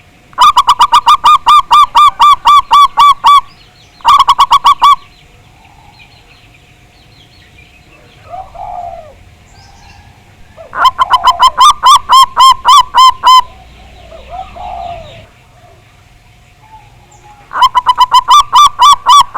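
Zebra doves (perkutut) calling: loud bouts of rapid staccato cooing notes, about four a second, repeated four times. Two softer, lower coos fall between the bouts.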